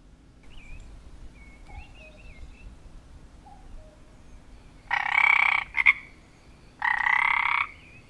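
Frog croaking sound effect: two loud croaks of just under a second each, about two seconds apart, with a short extra croak right after the first. Before them come faint, high, wavering chirps.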